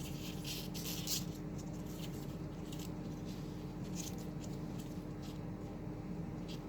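Teflon thread-seal tape being wrapped and pulled tight around brass threads: intermittent light scratching and rustling, over a steady low hum.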